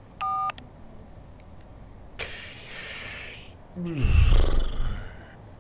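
A single phone keypad tone beeps briefly. A man lets out a long breathy exhale, then a loud, low, rough groan that falls in pitch.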